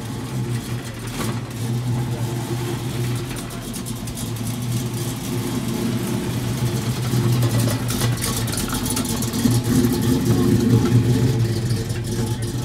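A car engine idling steadily and fairly loudly, getting a little louder in the second half.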